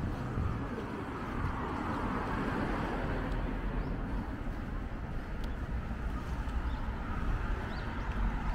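Street traffic noise: cars passing on a city street, a steady hum and tyre hiss with no sharp sounds.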